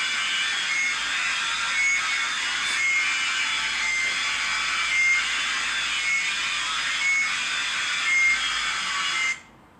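Emergency alert alarm sound played back: a steady hiss of static with a short high beep repeating about once a second, cutting off near the end.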